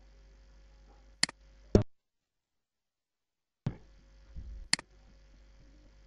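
Steady mains hum on a computer microphone line, broken by a few sharp clicks and knocks. The sound cuts out completely for about two seconds in the middle and comes back with a click.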